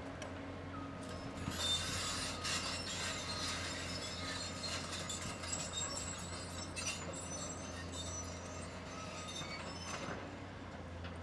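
CAT 320C excavator's diesel engine running with a steady low hum while the machine works, with high metallic squealing and scraping starting about a second and a half in and easing off near the end.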